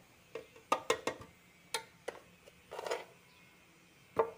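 Light knocks and taps of banana slices being dropped into a plastic blender jar, several scattered separate hits, with a short rustle a little before the three-second mark.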